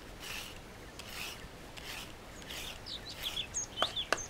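Hand-held vegetable peeler scraping down a raw carrot in repeated strokes, about one every three-quarters of a second. Birds chirp and two sharp clicks sound near the end.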